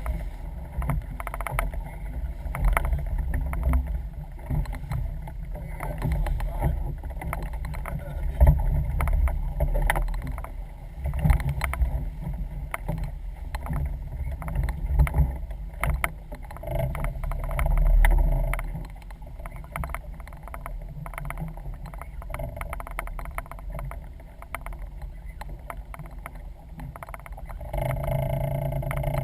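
Sounds aboard a small boat: a heavy low rumble with many sharp knocks and clicks throughout.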